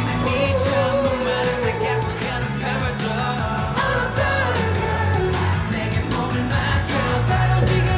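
K-pop song with singing over a funky guitar and bass backing and a steady beat.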